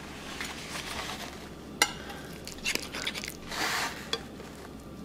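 Kitchen utensils being handled at a glass baking dish: one sharp tap a little under two seconds in and a brief scrape about three and a half seconds in, with a few small clicks between.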